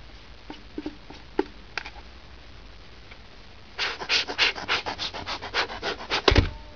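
Cotton-gloved fingers rubbing over the plastic body of a Polaroid 600 camera in quick strokes, about five a second, for a couple of seconds, ending in a thump as the camera is handled. A few light clicks of handling come before.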